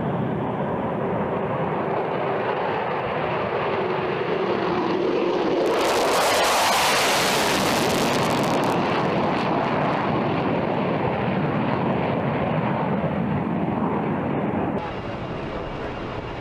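Twin Pratt & Whitney F119 jet engines of an F-22 Raptor at takeoff power. The jet noise carries a falling tone over the first few seconds. About six seconds in it turns louder and harsher for about three seconds, then settles, and near the end it drops to a quieter engine sound.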